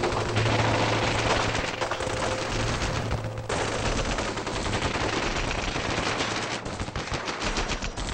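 War-film gunfire sound effect: dense, continuous small-arms fire with rapid bursts of machine-gun fire.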